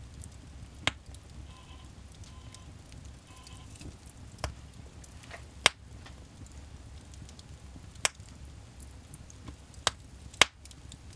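Wood fire burning in a fireplace: a low steady rumble of flame broken by sharp crackling pops, half a dozen of them loud, the loudest near the end, with fainter ticks in between.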